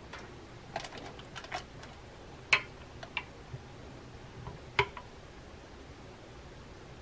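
Wooden chopsticks clicking and tapping against a bowl and a foil-lined air fryer basket as chicken pieces are dipped in batter and laid in. The taps are scattered, with two sharper clicks about two and a half and five seconds in.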